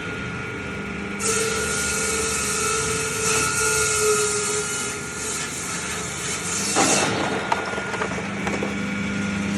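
Motor-driven ice-cutting machine with a gang of twelve blades running with a steady hum. A hissing scrape of the blades sawing through a block of ice starts about a second in and stops after about seven seconds, with a knock as it ends.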